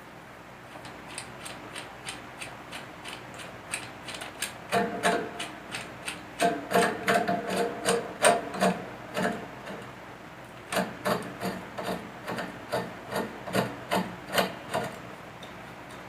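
Pop filter's screw clamp being turned and tightened onto a microphone arm: a rhythmic series of short scraping strokes, about two or three a second, in two runs with a short pause in the middle.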